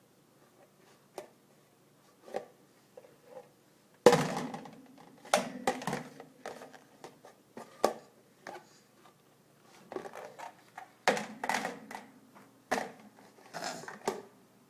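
Irregular knocks, thunks and clattering from a dishwasher being handled, its racks and door knocked about; the loudest knock comes about four seconds in, with a busier run of clatter near the end.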